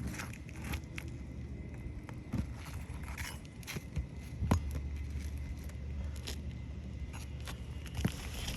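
Scattered clicks, ticks and scrapes of a roofing tool prying under old, brittle asphalt shingles and their nails, over a steady low rumble.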